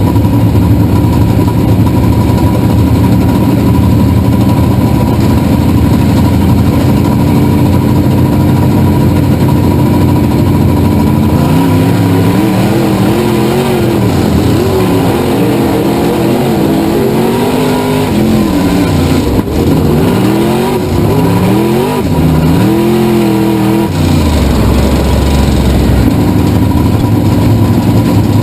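Race car engine recorded onboard, running at a steady speed at first. From about eleven seconds in it revs up and down again and again as the throttle is opened and lifted, then it settles back to a steady note near the end.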